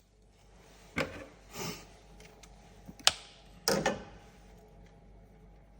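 A few sharp clicks and knocks from handling a fuel injector's plastic electrical connector and its U-shaped retaining clip, the loudest about three seconds in, followed by a short cluster of rattly clicks.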